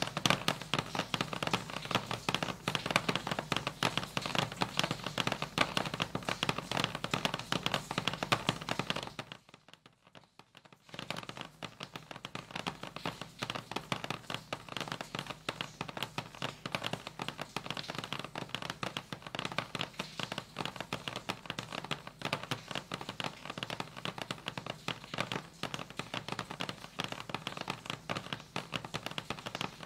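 Dense, continuous crackle of rapid clicks and taps, a live-processed sound-art texture built from recordings of a house. It cuts out for about two seconds around nine seconds in, then comes back a little quieter.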